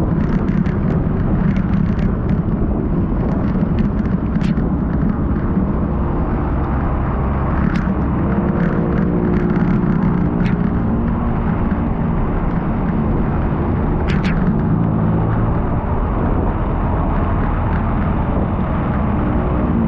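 Steady, loud wind rumble on the microphone while riding, with a vehicle running underneath and scattered sharp ticks.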